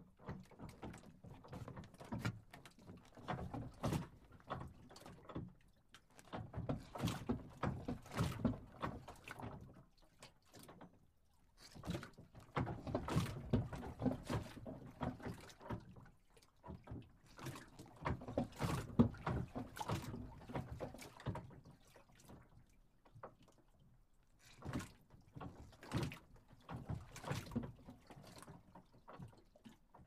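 A boat moored at a dock, rocking on the water: a run of creaks, knocks and thunks that swells and fades in slow surges about every five or six seconds.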